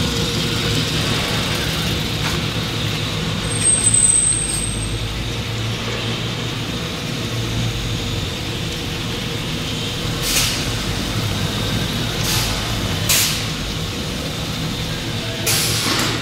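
Spiral paper core machine running with a steady mechanical hum. A brief high-pitched squeal comes about four seconds in, and four short hisses follow in the second half.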